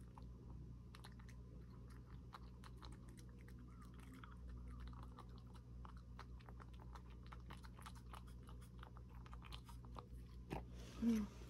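A cat eating from a wooden dish: faint, irregular chewing and crunching clicks. A brief voiced sound comes near the end.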